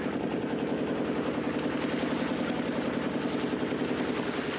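Motorboat engine running steadily, a rapid even beat of about ten pulses a second.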